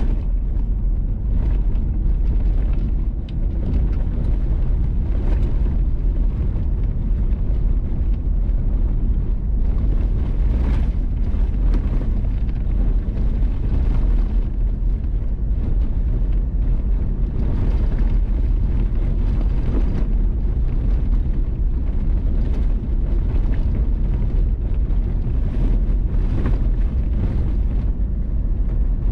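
Vehicle driving on a gravel road: a steady deep rumble of tyres on gravel and running gear, with short scratchy flurries now and then.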